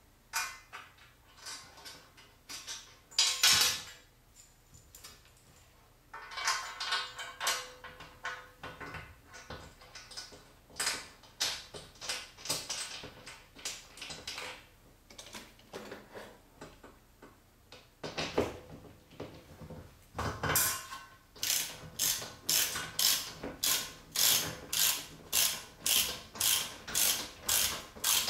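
Hand socket wrench ratcheting a bolt up into the ceiling, with irregular clicks and rattles at first and one loud clank a few seconds in. In the last third it settles into steady ratcheting strokes, about two a second, as the bolt is driven home.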